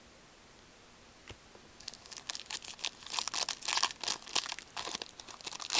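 A pack of hockey trading cards being torn open, its wrapper crinkling and crackling in quick irregular bursts from about two seconds in.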